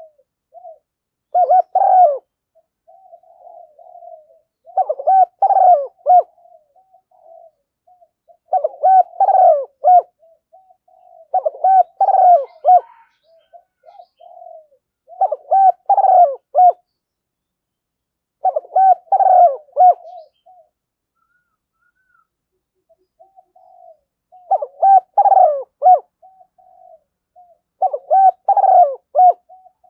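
Spotted dove cooing: a repeated phrase of several coos about every three to four seconds, with softer, lower coos between the phrases. It is a lure call used to draw other doves in.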